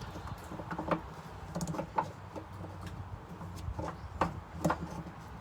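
Irregular small metallic clicks and taps of hardware being handled as a retaining washer and nut are fitted onto a step-bar mounting bolt, over a faint steady low hum.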